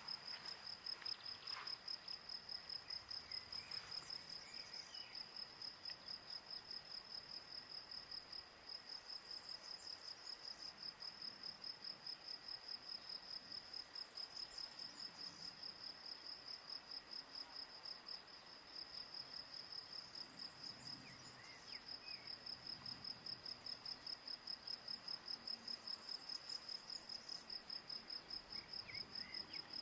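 Cricket singing steadily in the background: a high-pitched, evenly pulsing trill of about four pulses a second, which breaks off briefly a few times.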